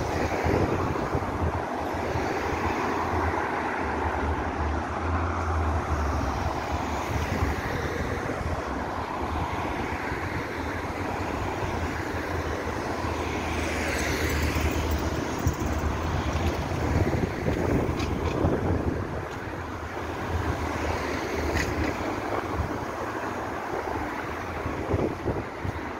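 Road traffic: cars driving past on a street, with a swell as a vehicle passes about halfway through, and wind rumbling on the microphone.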